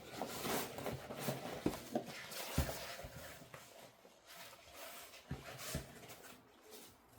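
Rustling and crinkling of packaging as a photography light kit is unpacked by hand, with a few light knocks.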